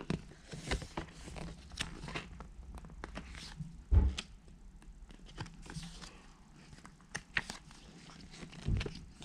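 Paper pages of a picture book rustling and flapping as they are turned, in short scattered strokes, with a dull thump about four seconds in and a softer one near the end.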